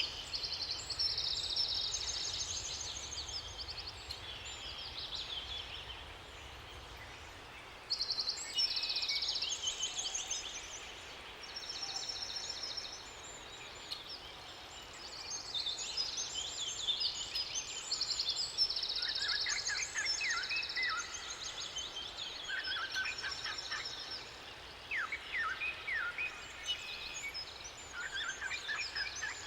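Several songbirds singing together, with repeated high-pitched trills and short phrases overlapping. About two-thirds of the way in, a lower-pitched song of quick repeated notes joins them.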